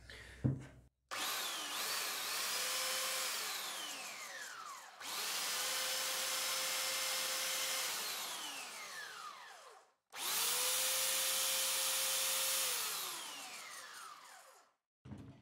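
Ozito electric belt sander switched on three times: each time the motor whines up to speed, runs steadily for a couple of seconds, then winds down after the trigger is let go. It runs normally on its first test after repair. A sharp click comes just before the first start.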